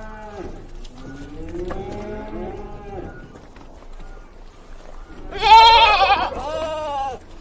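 Farm animals bleating: softer calls that rise and fall in pitch, then a loud, quavering bleat about five seconds in that lasts nearly two seconds.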